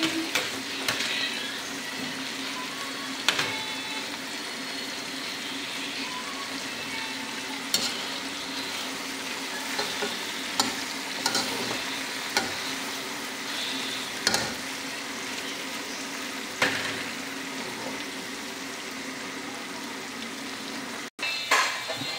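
Chicken pieces with carrots, tomato and onion sizzling as they fry in a pan. A spatula stirs them, knocking and scraping against the pan now and then.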